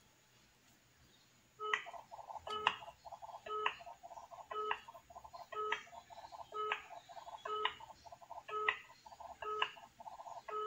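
Outgoing call ringing through a smartphone's loudspeaker while waiting for an answer: a tone pattern repeats about once a second, starting about one and a half seconds in.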